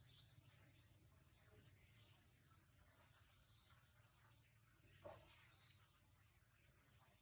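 Faint, high bird chirps, short calls repeating every second or so, over a low steady hum.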